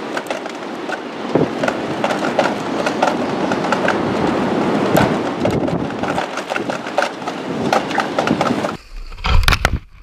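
A plastic sled scraping and rattling over rough lake ice, with many small knocks, in strong wind. A few loud low thumps come near the end.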